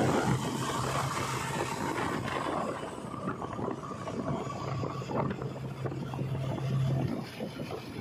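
JCB 3DX backhoe loader's diesel engine running as it drives along the road, a steady low hum that drops away near the end, with wind rushing over the microphone.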